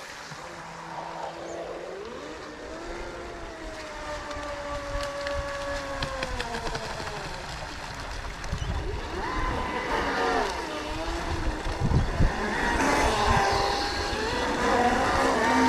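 Whine of a radio-controlled scale race boat's brushless electric motor (TP 4050, 1700kv, on a 4S battery) running at speed. Its pitch falls and rises several times with the throttle, and it grows louder toward the end.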